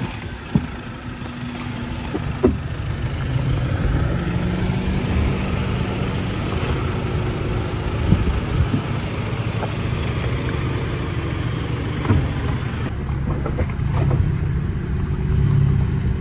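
Toyota Tacoma pickup engine running at low revs while the truck crawls over rocks on a dirt trail, with several sharp knocks and crunches of tyres and underbody on rock.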